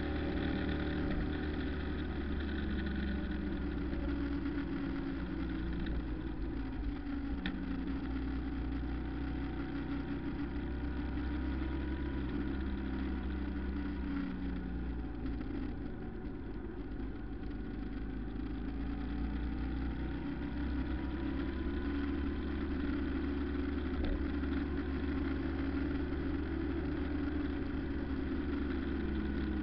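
Vehicle engine running steadily while driving, its pitch drifting slowly up and down with speed, over a constant low rumble.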